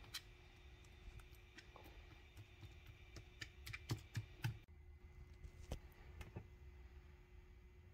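Faint, scattered clicks and taps from a knife point being stabbed into a raw beef chuck steak on a foam meat tray, poking holes in the meat. The background changes about four and a half seconds in, and a few more faint taps follow.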